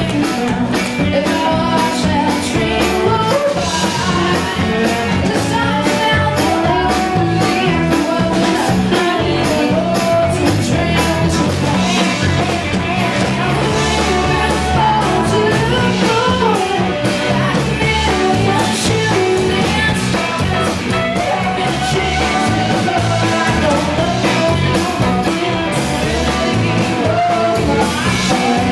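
Live rock band playing: a woman sings lead over electric guitars and drums.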